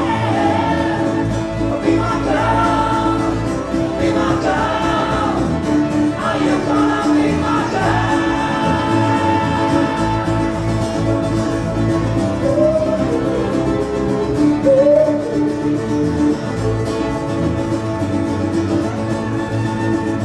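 Live acoustic band playing a rock song: two guitars strummed with a fiddle, and men singing. A fiddle line slides up in pitch a couple of times around the middle.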